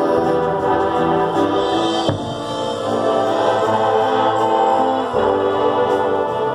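High school marching band playing, its winds and brass holding long sustained chords that change about two seconds in and again about five seconds in.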